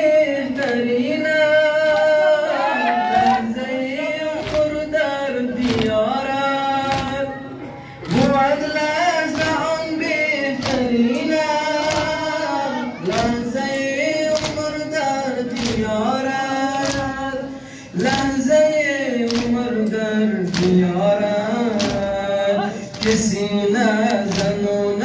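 Men singing a noha, a Shia mourning lament for Muharram, in long held lines with short breaks between them. Regular hand slaps of chest-beating (matam) keep time under the singing.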